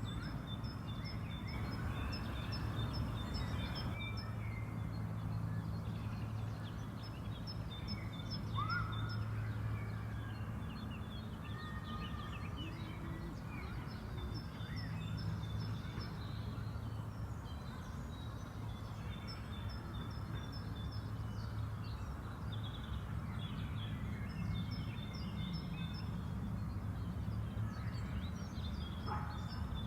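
Park ambience of birds singing: short phrases of quickly repeated high notes, coming back every few seconds, with other scattered chirps, over a steady low hum.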